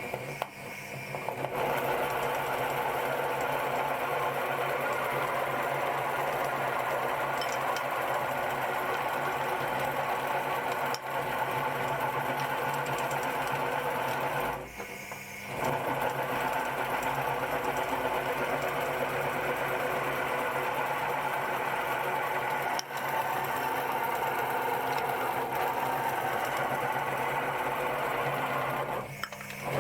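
Electric meat grinder running steadily with a motor whir as it grinds chocolate, the sound dropping briefly about halfway through.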